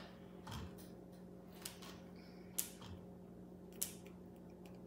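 Quiet room tone with a steady low hum and a few faint, sharp clicks or taps, the clearest about two and a half and almost four seconds in.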